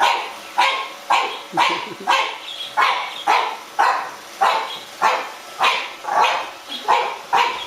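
French bulldog puppy barking over and over at a steady pace, just under two barks a second.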